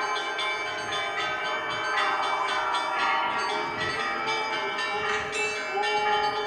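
Church bells ringing: several bells of different pitch struck in quick, continuous succession, each tone ringing on under the next strikes.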